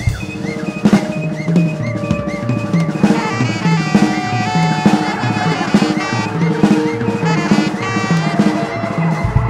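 Live band playing improvised jazz-noise: drum kit, electric guitar and bass under a steady low pulse, with a saxophone playing long held lines that thicken from about three seconds in.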